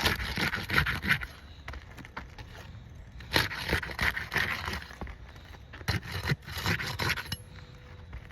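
Scraping and rubbing on asphalt roof shingles, in three rough bursts of a second or so each, with a few sharp clicks.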